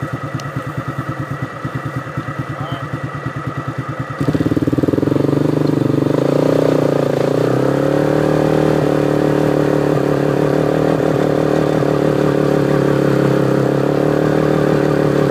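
Vehicle engine idling with a regular pulse, then revved about four seconds in: the pitch climbs for a couple of seconds and is then held high and steady, under load, as it strains to pull a vehicle stuck in mud.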